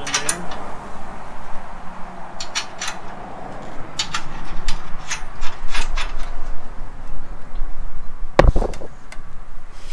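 Scattered metal clicks and clinks as steel bolts, washers and nuts are handled and fitted by hand into a steel engine-cradle bracket. A single louder knock comes about 8.5 seconds in.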